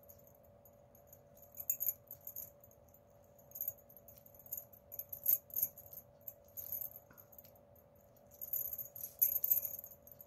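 Plastic craft wire clicking and rustling in irregular bursts as the strands are pulled through and tightened into a knot. A faint steady hum lies underneath.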